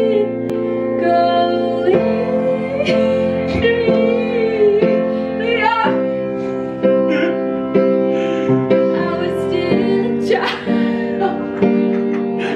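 A woman singing a Christmas song over held piano chords, the chords changing about every two seconds.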